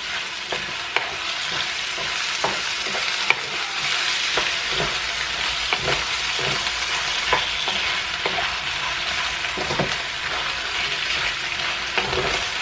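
Chicken frying in a pan with sauce, sizzling steadily as it is stirred, with irregular clicks and scrapes of the stirring utensil against the pan.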